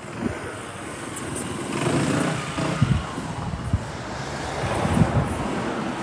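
A vehicle driving past on a city street, its engine and tyre noise growing louder about two seconds in.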